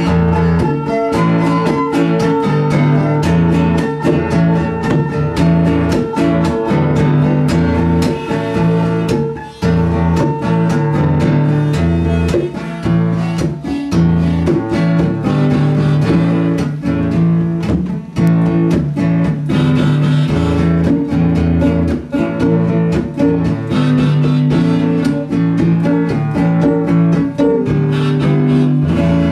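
A small acoustic band playing a song live: several acoustic guitars and a mandolin strummed together in a steady rhythm.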